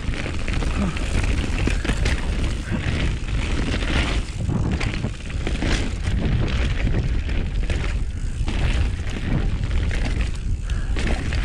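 Wind rumbling hard on the camera microphone of a mountain bike on a fast trail ride, with the tyres and bike rattling over rough dirt in many short knocks.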